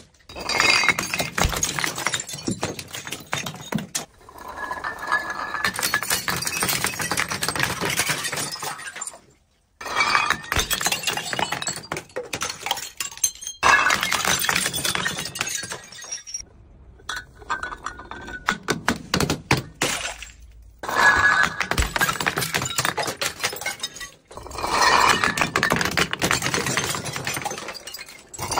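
Glass bottles tumbling down concrete stairs and shattering: clusters of sharp impacts, breaking glass and clinking shards. This repeats in about six separate drops, each cut off abruptly.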